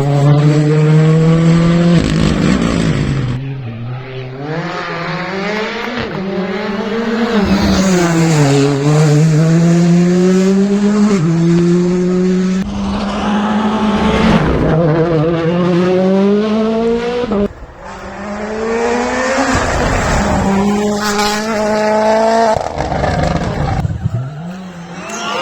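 World Rally Car's turbocharged four-cylinder engine revving hard, its pitch climbing and falling again and again through gear changes and lifts, with a brief sudden drop a little over two-thirds of the way through.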